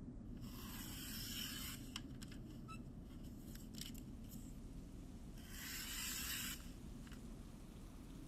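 Two short rasping strokes of hand craft work on small materials, each about a second long, with light clicks and taps between them.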